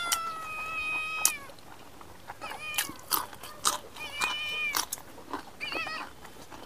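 A cat meowing repeatedly: one long, drawn-out meow at the start, then several shorter meows later on. Between them come the short clicks and smacks of a person chewing food.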